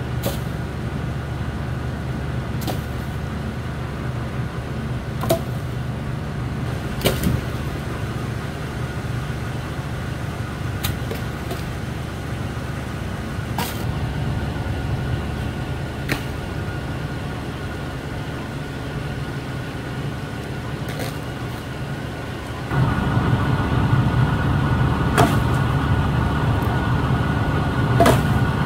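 Sharp, separate knocks of firewood logs being lifted and dropped onto a pile, about ten in all, over a steady low engine-like drone that grows louder near the end.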